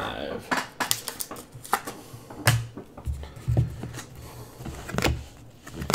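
Trading cards being handled one at a time: irregular sharp clicks of cards slid and flicked against each other, several with a soft thump as a card is set down or tapped on the tabletop.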